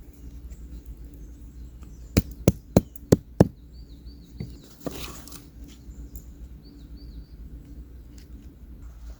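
Five sharp wooden knocks in quick succession, about three a second, a little over two seconds in, from firewood being worked for a campfire. A brief rustle follows, and birds chirp faintly.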